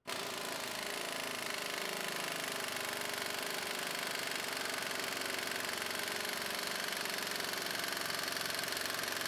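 Air impact wrench hammering steadily on a torque dyno's test bolt through a Lisle weighted 19 mm socket, kicking in at once and running without a break while the torque builds.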